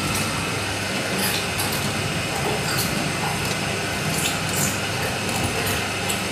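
Electric samosa sheet-making machine running steadily, its motor and rollers pressing out a sheet of dough: a constant low hum and mechanical noise with light ticks now and then.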